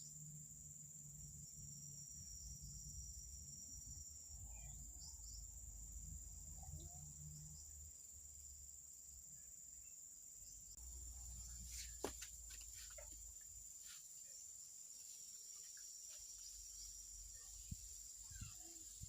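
Faint outdoor ambience dominated by a steady, high-pitched insect drone, with a low rumble underneath and a few light clicks about twelve seconds in.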